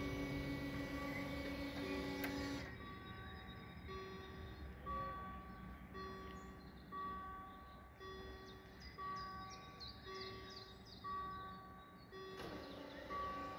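Level-crossing warning bell sounding while the barriers are down: a repeating electronic ding, about one a second, alternating a high and a low tone.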